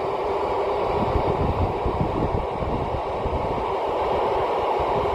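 Steady static hiss from an Icom IC-2730A FM transceiver's speaker, turned up while it waits for the satellite pass. Wind buffets the microphone underneath in an uneven low rumble.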